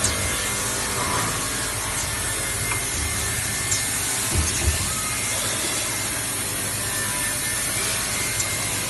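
Automatic sanding and polishing line for stainless steel utensils running: a steady grinding, rubbing noise of abrasive work on metal, with a few sharp clicks and two low knocks from the machinery about halfway through.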